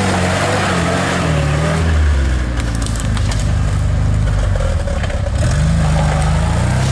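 Engine of an off-road 4x4 working under load as it crawls through a muddy rut. Its pitch drops about two seconds in and rises again near the end, with a few scattered crackles in between.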